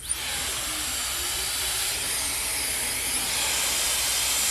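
Hand-held hair dryer with a concentrator nozzle switched on right at the start, then blowing a steady rush of air with a faint high whine.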